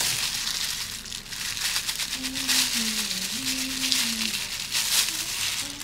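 Crinkling and rustling of paper wrapping and a plastic food glove as a bagel is handled on a metal tray and cut with a knife.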